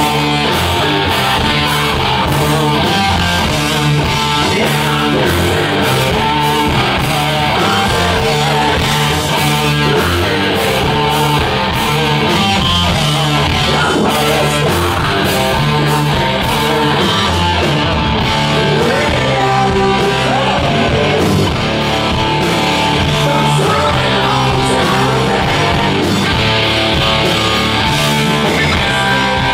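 Southern metal band playing live and loud: electric guitars, bass and drums, with a singer on the microphone.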